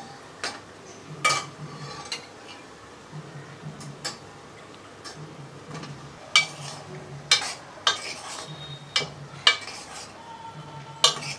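A steel spoon stirring thick masala in a stainless steel pot, with sharp clinks of metal on metal. The clinks come once early and then several times in the second half. A faint, low, evenly pulsing beat runs underneath.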